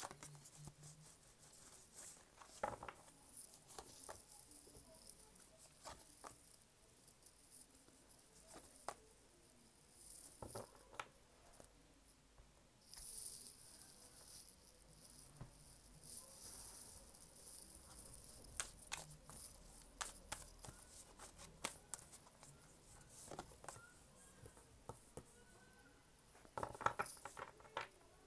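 Faint handling of a deck of oracle cards: scattered soft clicks and flicks as the cards are shuffled and laid down on the table, with a quicker run of clicks near the end.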